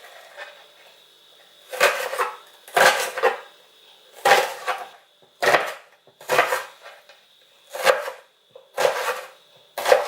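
Kitchen knife dicing an onion: about eight separate cuts, roughly one a second, starting about two seconds in.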